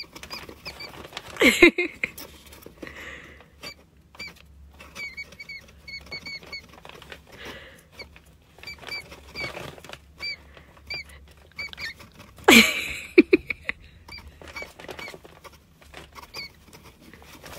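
Pet rat squeaking while being tickled: short high chirps in quick little runs, which are taken for the rat laughing. Two louder, lower sounds stand out, about a second and a half in and again about twelve seconds in.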